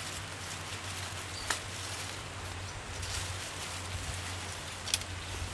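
Rustling of green bean vine leaves as pods are picked by hand, with two short sharp clicks, one about a second and a half in and one near the end.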